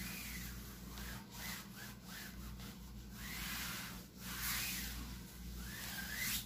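Damp cloth wrapped on a wooden broom being wiped over wallpaper, a soft rubbing swish that rises and falls with each of several strokes.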